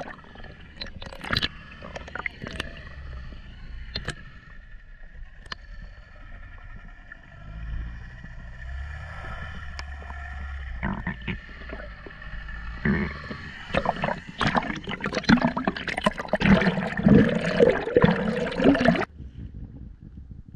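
Underwater sound picked up by a GoPro: muffled water noise with scattered sharp clicks and faint steady tones. From a little past the middle it turns into much louder splashing and gurgling as the camera works up near the surface, and this cuts off suddenly near the end.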